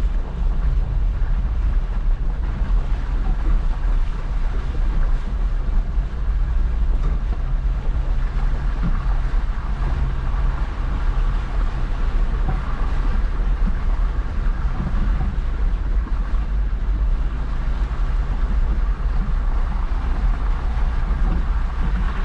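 Jeep engine running steadily as it drives slowly off-road, a low rumble throughout with wind noise on the microphone.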